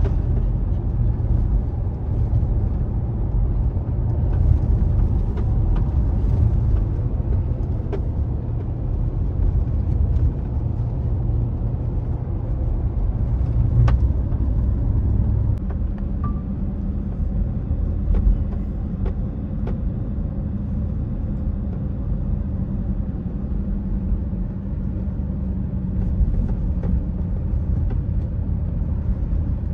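Road and engine rumble heard inside a moving vehicle's cabin: a steady low rumble that eases a little about halfway through.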